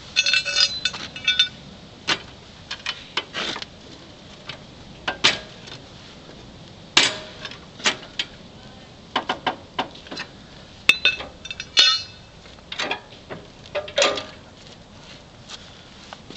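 Steel angle iron striking and prying against the mower's steel plow mount: irregular metal knocks and clanks, some ringing briefly, with ringing clusters near the start and again about eleven seconds in. The metal is being bent out so the plow can turn without catching.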